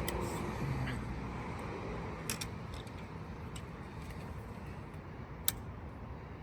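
A few light clicks and taps of small engine parts being handled and fitted, the sharpest about five and a half seconds in, over a steady low background hum.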